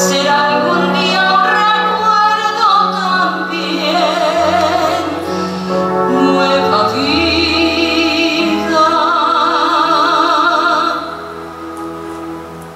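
A woman singing a theatre ballad in full voice with a wide vibrato, holding long notes over instrumental accompaniment. The sound falls away about eleven seconds in.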